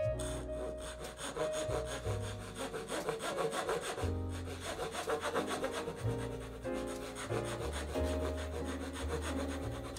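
Japanese dozuki pull saw cutting wood in fast, even strokes, sawing the angled wall of a sliding dovetail housing. Soft piano music plays underneath.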